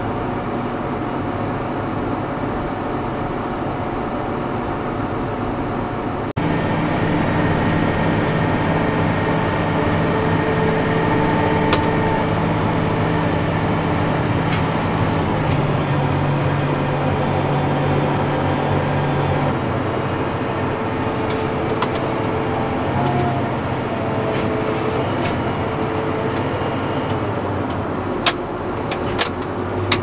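Tractor engine running steadily, heard from inside the cab while driving. The sound jumps abruptly louder about six seconds in, the engine note shifts in pitch a little past the middle, and a few sharp clicks come near the end.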